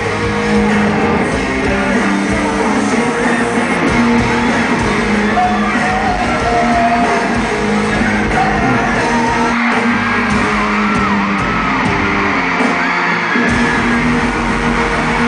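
Live band music with electric guitar and singing, filling a large hall, under the high screams and cheers of a packed arena crowd.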